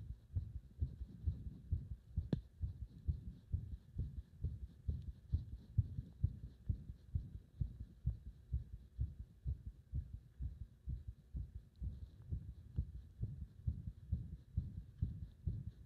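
Human heartbeat heard close against the body: a steady run of low thumps, with one sharp click about two seconds in.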